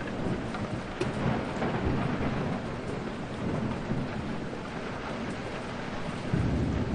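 Steady heavy rainfall with thunder rumbling low in the background, swelling about a second in and again near the end.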